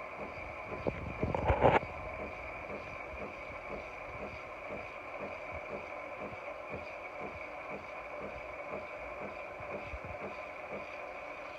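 Nespresso Lattissima Touch pod coffee machine running: a steady whine with a fast, even pulsing underneath. A brief louder burst of noise comes about a second and a half in.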